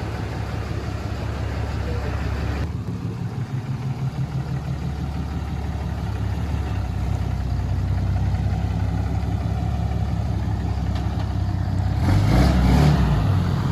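The 6.7-litre Cummins inline-six turbo-diesel of a 2012 Ram 2500 idling steadily, with a louder stretch near the end.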